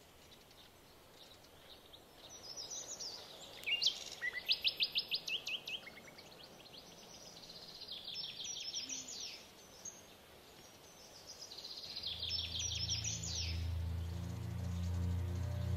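Birds calling in the bush: several bursts of quick, high, repeated chirps a few seconds apart, over a faint background hiss. About twelve seconds in, a low droning music note swells in beneath them.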